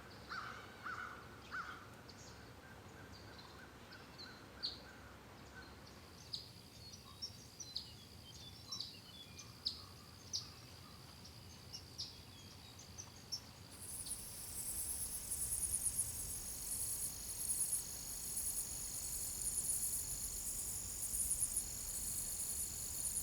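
A run of wild nature recordings. First frogs croak in short repeated calls, then scattered short bird chirps and clicks follow. About fourteen seconds in, it changes suddenly to a dense, pulsing insect chorus over a steady high whine, the loudest part.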